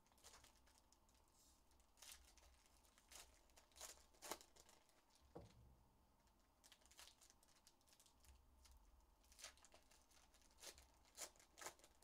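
Foil wrappers of Panini Prizm basketball card packs being torn open and crinkled by hand, heard as a series of short, faint crackling rips.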